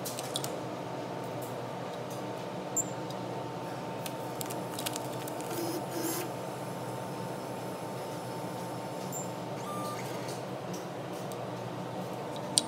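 Steady machine hum of a laundry room, with a few sharp clicks as a laundry card is handled at the value terminal's card reader, the loudest near the end, and a short electronic beep about ten seconds in.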